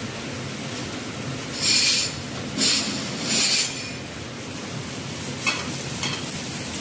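Thin-sliced pork frying in vegetable oil in a frying pan: three short, loud sizzling hisses in quick succession, then a spatula clicking against the pan as the slices are spread out near the end.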